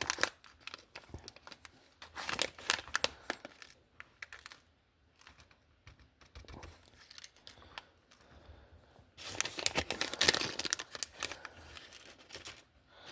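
Plastic packaging of new motor brushes being handled and torn open: crackly crinkling and tearing in spells, loudest near the end.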